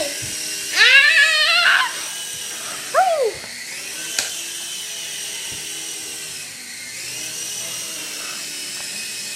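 Small electric motor and rotors of a toy remote-control helicopter in flight, a steady high whine. A child's voice calls out loudly about a second in and again briefly near three seconds.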